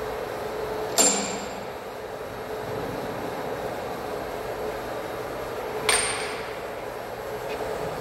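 Steady hum of a large CNC faceplate lathe as its 4-metre faceplate turns slowly. Two sharp metallic clangs with a brief high ring stand out, about one second in and again about five seconds later.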